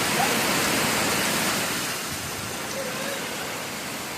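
Heavy rain pouring down, a steady dense hiss that eases slightly after the first second and a half.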